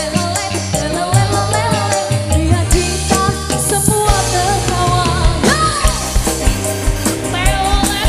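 Live dangdut band: a woman sings a wavering melody into a microphone over electric guitar, bass and a steady drum beat.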